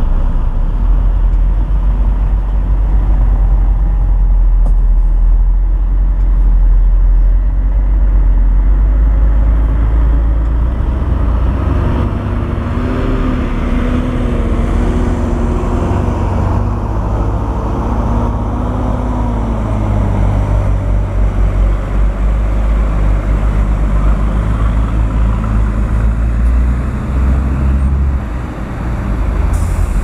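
Heavy earthmoving machinery's diesel engine running under load, a deep steady rumble, with a wavering higher-pitched tone coming in for several seconds in the middle.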